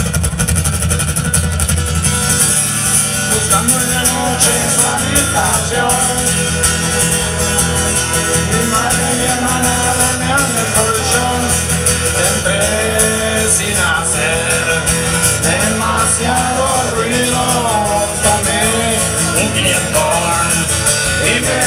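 Amplified acoustic guitar played live through a concert PA at the opening of a song; from about nine seconds in a wavering melody line joins over the guitar.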